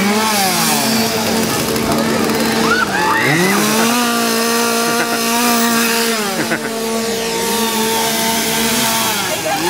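Chainsaw engine held at high revs, dropping briefly about three seconds in and again near the end, then revving back up.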